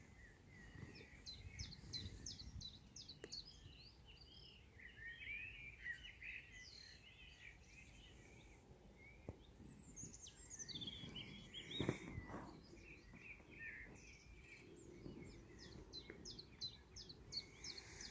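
Faint birdsong from several birds against a low steady rumble: quick trills of short high chirps near the start and the end, warbling phrases, and a falling whistle about ten seconds in. A brief thump about twelve seconds in is the loudest moment.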